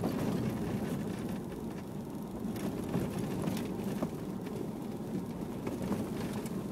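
Range Rover TDS diesel's cabin noise while driving slowly on an unpaved dirt road: a steady rumble of engine and tyres on gravel, with a few small knocks and rattles.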